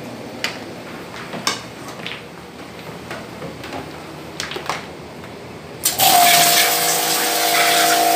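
A few light knocks and clatters, then about six seconds in a high-pressure water sprayer switches on: a steady motor whine under the loud hiss of the water jet hitting a metal grid rack.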